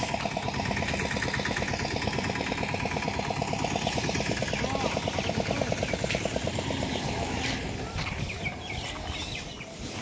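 Motorboat engine running with a steady, rapid pulsing beat, growing fainter near the end.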